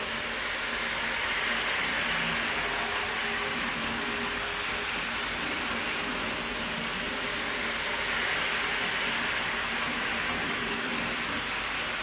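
Hornby OO gauge Class 47 model locomotive with five coaches running around an oval of track: a steady whirring hiss from its electric motor and wheels on the rails, swelling twice as it comes round.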